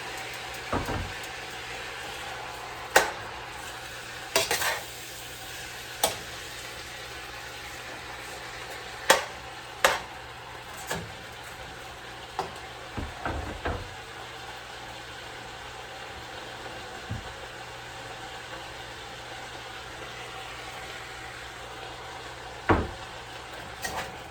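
Cabbage frying in oil in a pan with a steady sizzle, and a utensil knocking against the pan about a dozen times as it is stirred, mostly in the first half with a couple more near the end.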